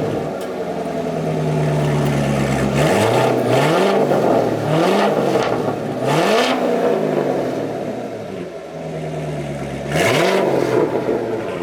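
Corvette V8 running through a freshly installed X-pipe exhaust, idling and blipped several times: the engine note rises and falls in quick revs a few seconds in and again near the end. Loud, with a snarl.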